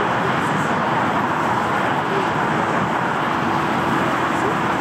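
Boeing 747 jet engines running at low thrust as the airliner taxis: a steady rush, with a faint steady whine joining about three seconds in.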